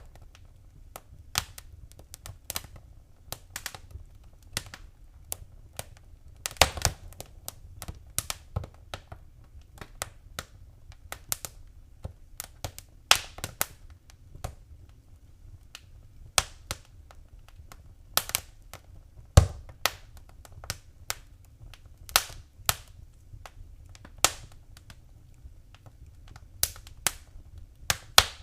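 Wood fire crackling: irregular sharp pops and snaps, a few louder ones now and then, over a faint low rumble of burning.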